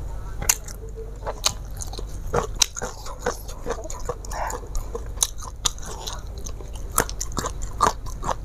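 Close-miked chewing: a person eating by hand, with irregular wet mouth clicks and smacks, over a low steady hum.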